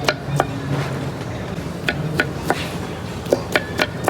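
Irregular sharp knocks and clicks of kitchen utensils, about nine in four seconds, over a steady low background hum.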